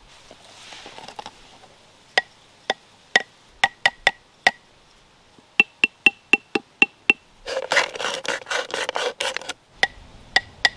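Homemade wooden marimba bars over plastic-bottle resonators, struck one note at a time: a handful of single strikes on one bar, then a run of evenly spaced strikes on a higher-pitched bar, then a rapid flurry of strikes for about two seconds, and a few more single notes near the end.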